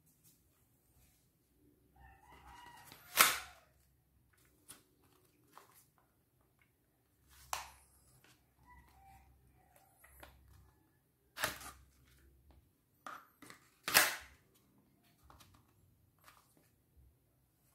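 Emerson universal polymer pistol holster being handled, its plastic parts snapping and clicking, with four loud sharp snaps a few seconds apart among quieter clicks and rubbing.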